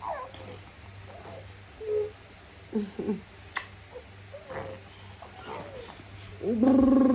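Newborn baby making short coos and whimpers, with a woman's voice sounding briefly near the end.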